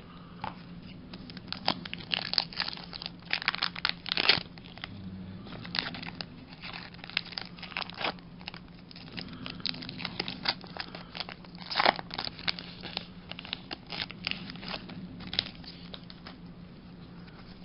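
Foil Pokémon card booster pack wrapper crinkling and being torn open, with irregular crackles throughout, thickest a couple of seconds in and again near the middle. A faint steady low hum sits underneath.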